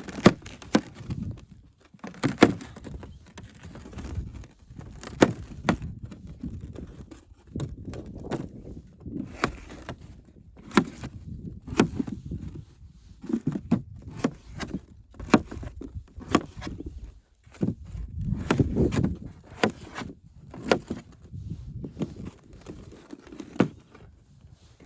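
A series of irregular knocks and thuds, roughly one a second, over low rustling and rumble: handling and moving-about noises.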